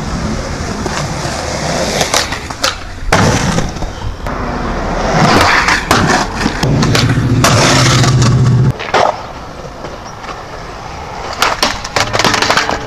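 Skateboard wheels rolling on concrete, loudest in the middle of the stretch, with sharp clacks of the board hitting the ground, several of them near the end as the skater pops the board for a trick.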